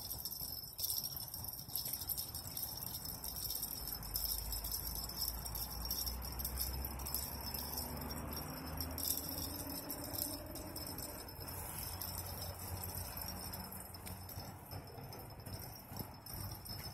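Spinning reel clicking and rattling as an angler fights a large catfish on a bent rod. A steady high-pitched insect-like chorus runs underneath, with a low rumble.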